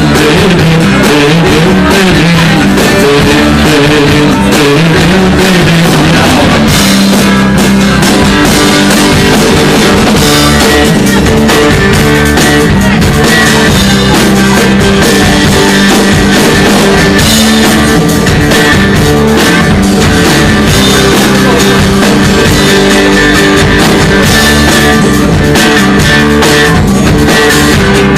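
Live rock band playing loud: electric guitars and drum kit, with some singing, in a distorted, overloaded recording.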